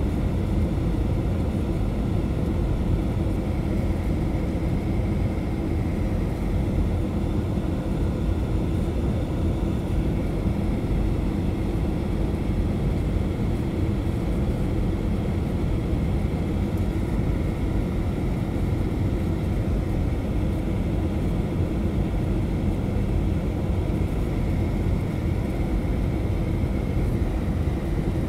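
Steady cabin noise inside a Boeing 737-800 on approach: a low rumble of its CFM56 turbofan engines and the airflow past the fuselage, with a faint steady whine.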